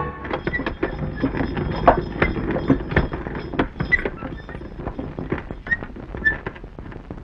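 Bullock cart drawn by two oxen, rolling: an irregular run of knocks and clops from the hooves and the wooden spoked wheels, the loudest about two seconds in. A few faint short high tones sound among them.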